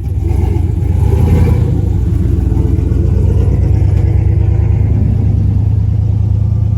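Loud engine rumble from a truck, swelling over the first second and then holding steady.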